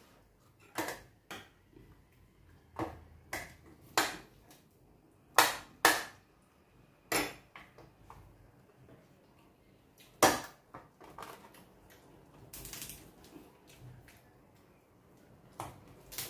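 Crispy pata, a deep-fried pork leg, being eaten by hand: a string of about ten sharp crunches and clicks, spaced unevenly, as the crackling fried skin is broken off and chewed over a metal tray. A short rustle comes about two-thirds of the way through.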